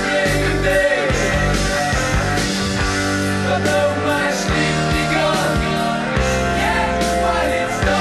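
Studio recording of a German progressive rock band playing: drum hits over long held notes and moving melodic lines.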